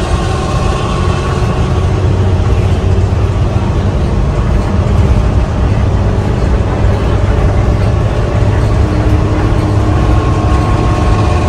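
Old bus's engine and exhaust running steadily under way, heard inside the passenger cabin. The sound is loud and low-pitched, with road noise around it.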